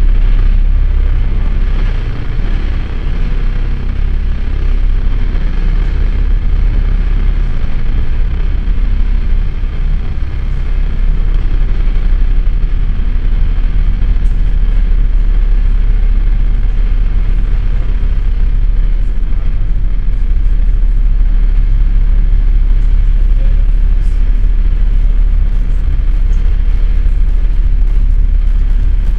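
Loud, dense experimental drone-noise music from live electronics and an effects-processed electric guitar: a deep, steady low rumble under a thick wash of noise.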